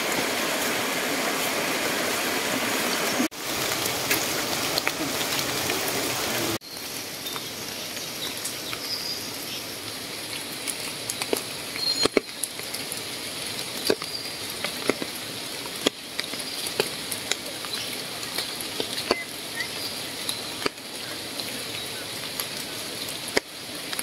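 Shallow forest stream running over rocks for the first six or so seconds, with two abrupt cuts. Then a quieter, soft hiss with irregular sharp ticks of water drops falling on wet leaves, and a few faint high chirps.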